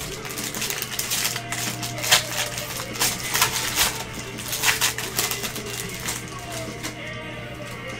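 Crinkling and tearing of a trading-card pack wrapper by hand, a run of crackling rustles through the first five seconds that then eases off. Background music plays underneath.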